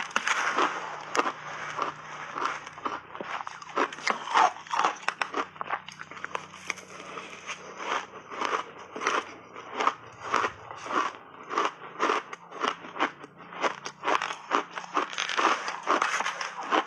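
Crunchy frozen blueberry shaved ice being bitten and chewed close to the microphone: a quick, uneven run of sharp crunches, two or three a second.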